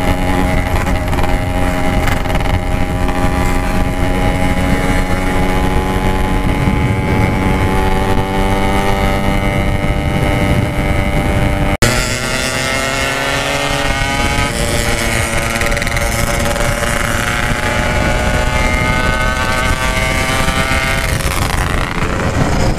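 Yamaha RX-King 135 two-stroke single-cylinder engine running at speed through a 'Packing Power' stock-look aftermarket exhaust. Its pitch creeps up in the first half, and after an edit about halfway through the revs climb steadily as the bike accelerates.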